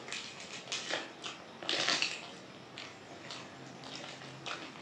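Close-miked chewing of a mouthful of rice, dal and crisp papad eaten by hand: a string of wet mouth smacks and crunches, loudest in a cluster about two seconds in.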